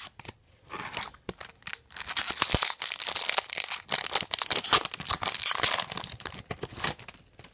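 A trading-card pack wrapper being torn open and crinkled: light rustling at first, then a dense crackling from about two seconds in that stops shortly before the end.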